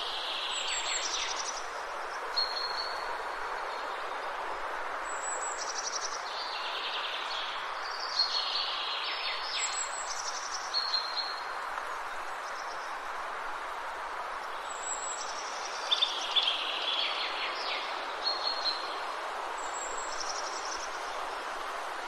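Songbirds singing in short, repeated phrases every few seconds, each often dropping from high to lower pitch and ending in a quick trill, over a steady background hiss.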